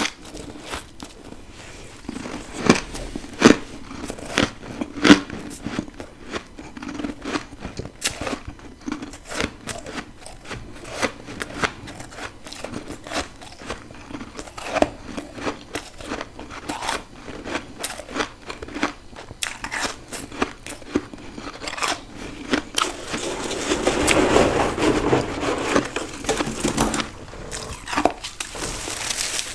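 Close-miked biting and chewing of freezer frost and ice: irregular sharp crunches, with a denser, louder stretch of steady crunching near the end.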